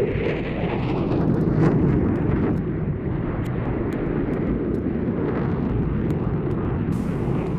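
Jet noise from an RAF Eurofighter Typhoon's two Eurojet EJ200 turbofans on a high-speed pass: a deep roar that swells over the first couple of seconds and then stays loud and steady.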